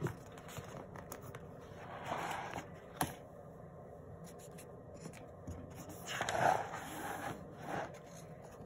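Paper pages of a textbook being turned by hand: two soft rustling swishes, about two seconds in and again near six seconds, with a single sharp tap just after the first.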